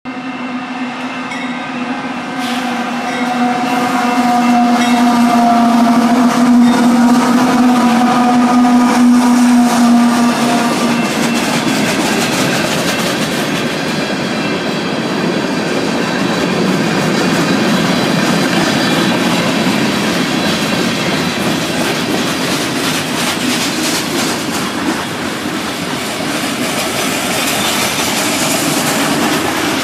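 Canadian Pacific diesel freight train sounding its multi-tone horn for several seconds as it reaches the grade crossing. Then the freight cars roll past with a steady rumble and wheels clattering over the rail joints.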